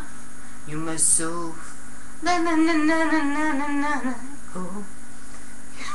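A woman singing wordlessly in a sing-song voice: a few short notes, then one long warbling phrase of about two seconds.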